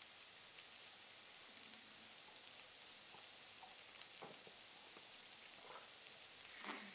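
Faint steady hiss of background noise, with a few faint short sounds about four, six and seven seconds in.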